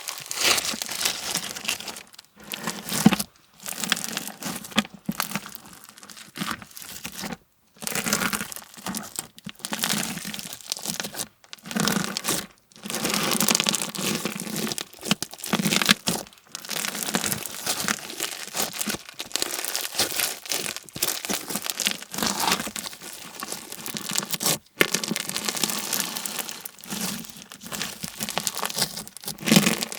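Clear slime full of slushie beads (small foam pellets) being squeezed and worked by hand, giving a dense crackling and crunching, broken by a few brief silent gaps.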